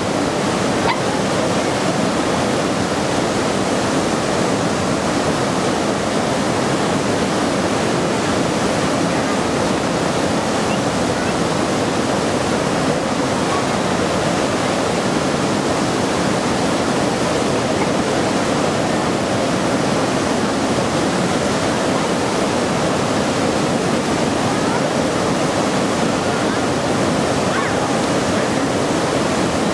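Steady roar of a waterfall, water pouring and splashing without a break.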